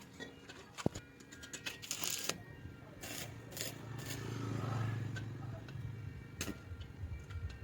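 Scattered clicks, knocks and short scrapes of things being handled, with a low hum swelling up and fading about four to six seconds in.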